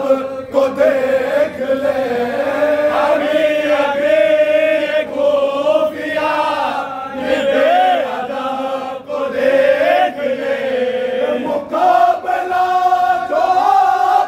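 Men's voices chanting an Urdu noha (Shia lamentation) together, with long held notes that rise higher near the end.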